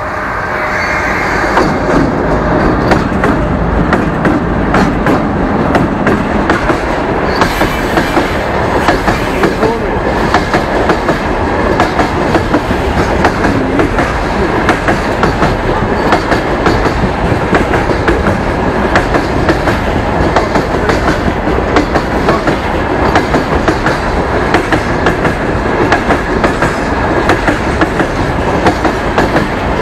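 Freight train passing close by, its wagons' wheels clacking steadily over the rail joints with a continuous loud rumble.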